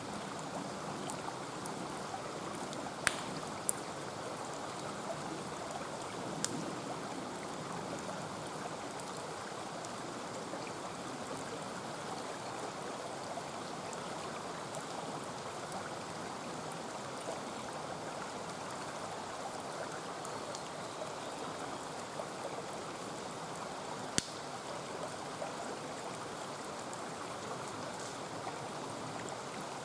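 Mountain stream rushing steadily, with a few sharp pops from a wood campfire: two close together about three seconds in, another a few seconds later, and one near the end.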